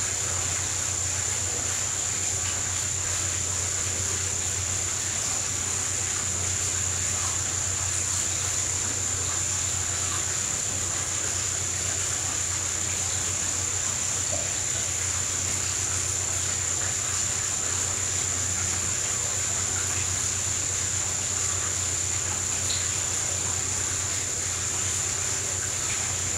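Underwater treadmill running: a steady machine hum with a constant high-pitched whine over it.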